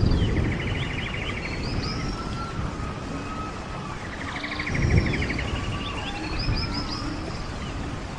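A songbird repeating its song, a fast trill followed by high whistled notes, over the steady rush of running stream water. A low rumble in the water noise swells just after the start and again about five seconds in.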